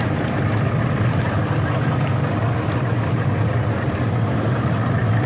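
A pair of Yamaha outboard motors running steadily, heard from aboard the boat as a constant low engine drone.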